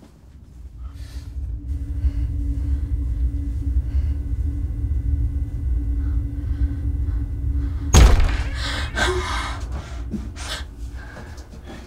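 Low rumbling horror drone with a steady hum, swelling over the first couple of seconds. A sudden loud hit comes about eight seconds in, followed by a few fainter knocks as it fades.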